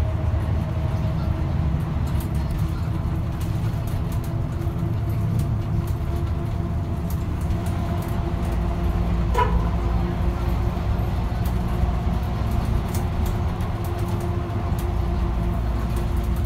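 Bus engine and road noise heard from inside the cabin while the bus drives along, a steady low hum with light rattles. There is one short, sharp click-like sound about nine seconds in.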